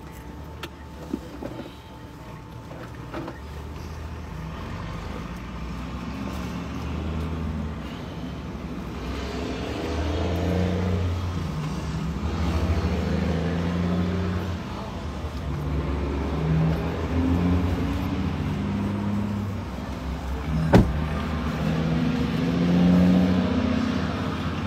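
A motor vehicle's engine running with a low rumble whose pitch shifts every second or two and which grows gradually louder. There is one sharp click about twenty seconds in.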